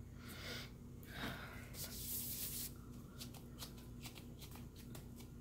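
Nitrile-gloved hands rubbing and patting a liquid illuminator onto facial skin: soft, faint rubbing, then a run of quick light pats from about three seconds in.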